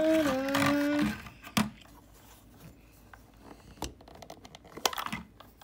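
A voice humming a held tone for about a second, then a few light, separate clicks and knocks of toy vehicles being handled.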